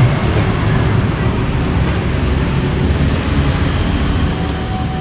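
Steady rumbling noise of motor traffic, even and without breaks.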